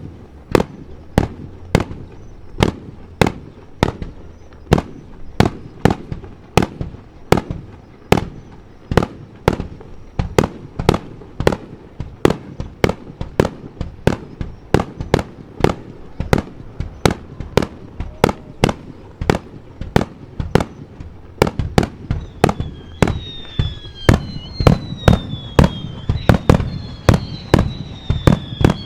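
Aerial fireworks bursting in a steady rapid string, about two sharp bangs a second. From about three-quarters of the way in, several falling whistles join and the low rumble grows heavier.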